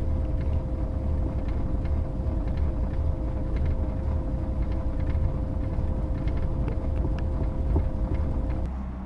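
1979 Mercury Zephyr sedan running with a steady low rumble and a thin, steady whine above it. Near the end the whine and rumble cut off suddenly, giving way to a quieter, lower hum.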